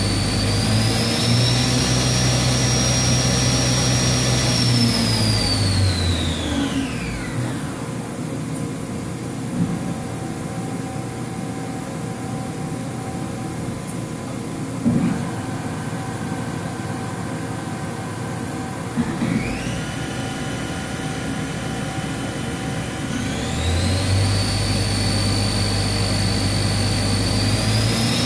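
Haas VF-9/50 CNC mill's CAT50 spindle running with a high whine, then winding down with a falling whine about five to seven seconds in. After a quieter stretch of steady machine hum with a few clicks, it spins back up in steps from about twenty seconds in, the whine rising in stages.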